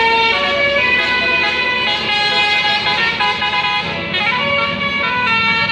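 A bus's 'telolet basuri' musical air horn playing a tune, its notes stepping from pitch to pitch every fraction of a second, with several notes sounding together.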